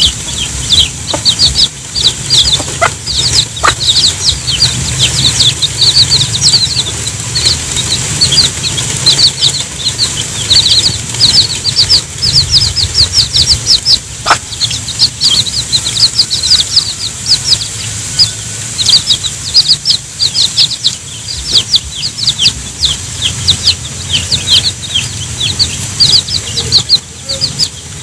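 Baby chicks peeping without pause, a stream of short, high, falling notes, several a second. Under them a mother hen clucks low as she calls the chicks to the food.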